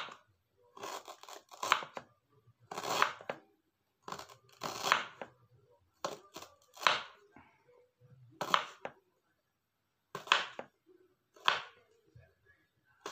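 Knife slicing fresh ginger root on a cutting board: about a dozen short cuts at an uneven pace of roughly one a second.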